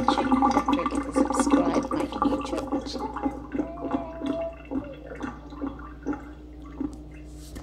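Water running from a kitchen tap into a stainless-steel sink, louder for the first couple of seconds and then fainter.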